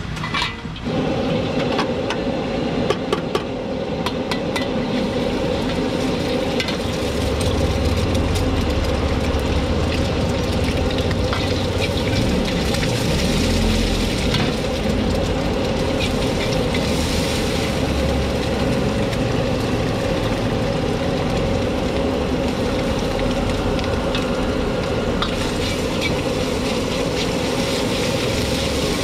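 An egg sizzling in hot oil in a wok, with a metal ladle clinking and scraping against the wok as it stirs and scrambles the egg, over the steady rush of the gas wok burner. The clinks are busiest in the first few seconds; the frying hiss holds steady throughout.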